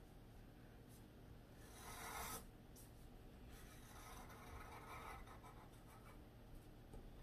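Faint scratching of a graphite pencil sketching lines on drawing paper, with the strongest stroke about two seconds in and lighter strokes after.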